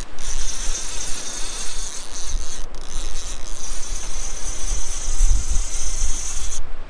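Steady high-pitched buzzing of insects, with wind rumbling on the microphone. The buzz stops near the end.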